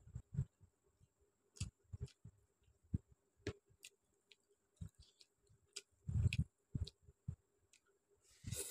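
Fingers mixing rice and chicken curry on a steel plate: scattered soft clicks and wet squishes, with a louder burst near the end as a handful is pushed into the mouth.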